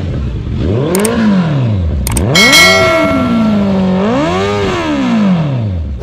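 Motorcycle engine revved up three times, dropping back after each rev, with a click about a second in and another just after two seconds, then a bell ding.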